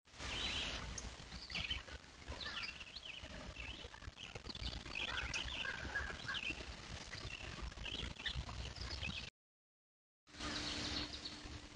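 Trail camera audio of many short, scattered bird calls over a steady low rumble. The sound cuts out to silence about nine seconds in, and a similar outdoor recording starts about a second later.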